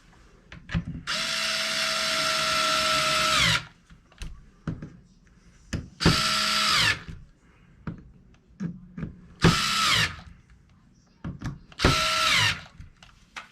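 Power driver running screws into the plastic cover of an RC truck's axle gearbox: four runs of motor whine, the first the longest, each dropping in pitch as it stops, with small clicks of handling between runs.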